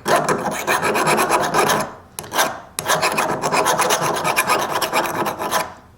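A Leatherman multitool's file rasping across the steel cutting edge of an ION 10-inch ice auger blade in rapid strokes, sharpening the dulled edge and taking off burrs. It goes in two long runs of filing with a short break about two seconds in.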